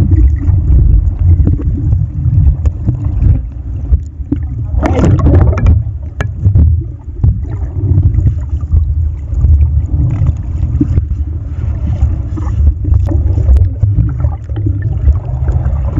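Muffled underwater sound through a waterproof camera housing: a dense, steady low rumble of moving water, with one brief louder rush about five seconds in.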